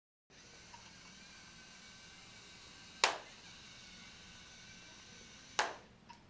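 Faint steady room hiss broken by two sharp knocks, one about three seconds in and a second near the end.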